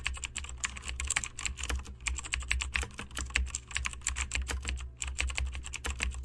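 Typing on a computer keyboard: rapid, irregular key clicks over a low steady hum.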